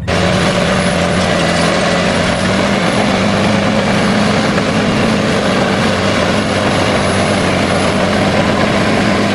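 Caterpillar D7R crawler bulldozer's diesel engine running steadily under load as it pushes dirt: a loud, constant drone with a low hum beneath it.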